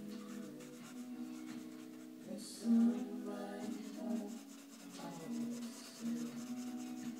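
Pencil shading on sketchbook paper, a soft scratching and rubbing, over background music with slow held notes. One louder stroke or knock stands out near the middle.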